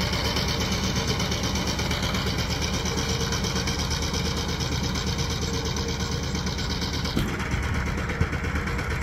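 Two-wheel power tiller engine running steadily under load as the tiller works through wet rice stubble, with a fast, even chugging pulse. About seven seconds in, the sound turns duller as the tiller moves off.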